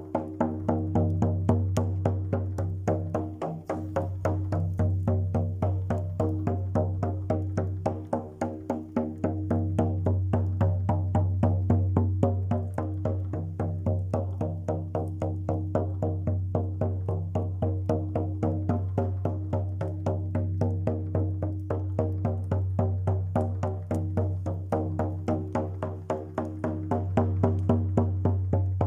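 Music: a rapid, even percussive beat over a steady low drone and sustained pitched tones.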